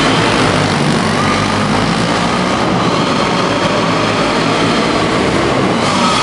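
Several racing go-kart engines running together as the karts lap the track, a steady, loud engine noise.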